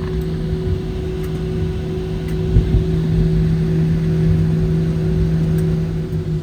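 Cabin noise of a Boeing 737-700 taxiing at low power: a steady drone from its CFM56 engines at idle, with a couple of light knocks about two and a half seconds in.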